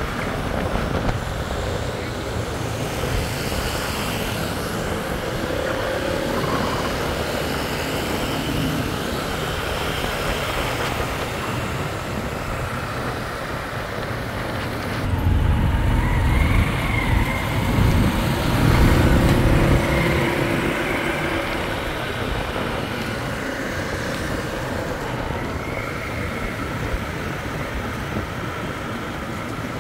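Urban street traffic noise: a steady wash of vehicle engines and road noise, swelling into a louder low rumble for several seconds about halfway through.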